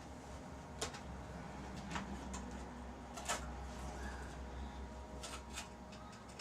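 Scattered light clicks and knocks of the rototiller engine's air filter cover and double air filter being handled and taken off, over a steady low hum.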